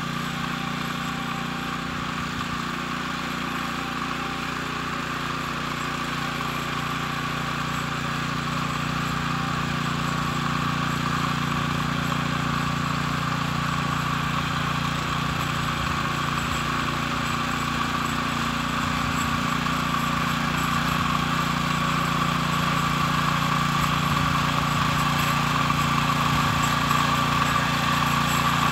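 Walk-behind tractor (motoblock) engine running steadily under load as it ploughs a potato bed. It grows gradually louder as the machine comes closer.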